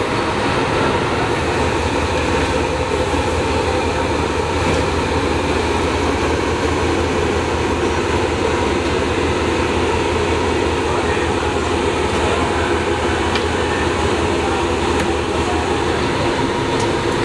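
A steady, loud mechanical drone with a low hum and a few constant tones above it, unchanging throughout.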